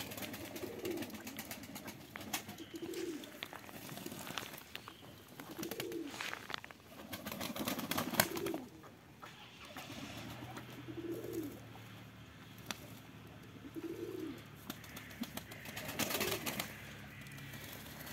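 Domestic pigeons cooing, a low coo every two to three seconds, with short wing flutters and splashes from birds bathing in a rainwater puddle.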